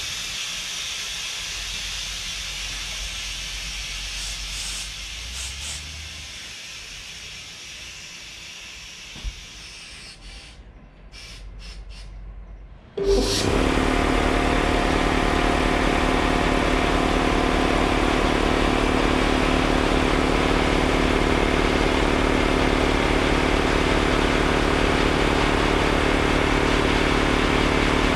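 Compressed air hissing steadily and fading away over the first ten seconds or so. About halfway through, a MAC McMillan 3200 air compressor's electric motor and piston pump start abruptly and run steadily, pumping up the tank.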